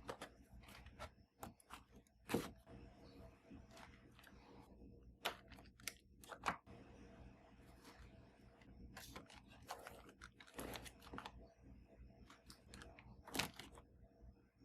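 Quiet handling sounds: scattered light clicks, taps and rustles, with a few sharper knocks spread through.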